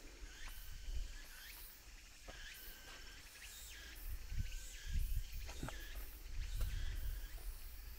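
Insects chirping in a steady high background, with a few footsteps on the forest floor and a low rumble of wind on the microphone, strongest in the second half.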